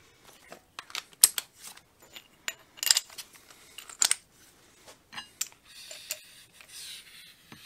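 Metal-on-metal clicks and clinks of steel tool parts being handled: a bit and a cut-down socket being fitted into the nose of a pneumatic air hammer, in irregular taps with short pauses. Near the end a steady hiss starts.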